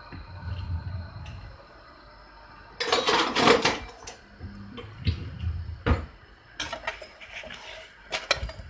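Kitchen handling noises: utensils and cookware clattering and knocking, with a few dull thuds and a dense clatter in the middle.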